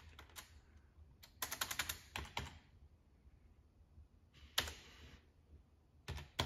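Keystrokes on a computer keyboard, typing in a command: a quick run of about eight key presses a little over a second in, a few more shortly after, then single presses near four and a half seconds and near the end.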